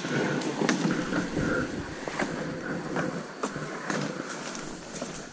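Rustling and crackling through fern undergrowth and dry leaf litter, with scattered sharp snaps, as someone moves on foot through the brush; it eases off toward the end.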